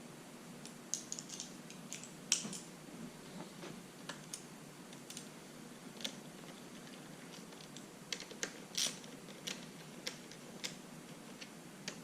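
Faint, irregular clicks and taps of handlebar clamp bolts and parts being handled and threaded in by hand, with a small cluster of clicks about eight to nine seconds in.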